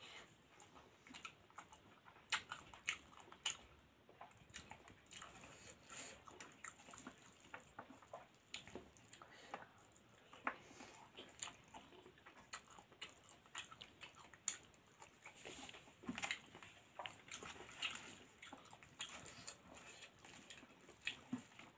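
Close-up eating sounds of rice and dal eaten by hand: chewing and lip smacks in irregular short clicks, with the soft squish of fingers mixing rice on a steel plate.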